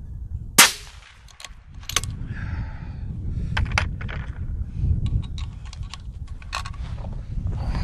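A single suppressed rifle shot from a 6mm ARC bolt-action rifle, sharp and loud, less than a second in. Scattered light clicks and knocks follow.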